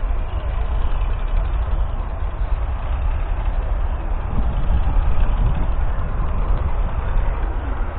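Ford County Super Six tractor's 5.4-litre six-cylinder diesel engine idling steadily, a little louder about halfway through.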